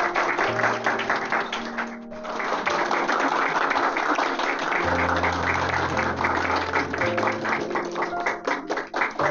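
Music with guitar and sustained bass notes, over quick, steady clapping from a crowd.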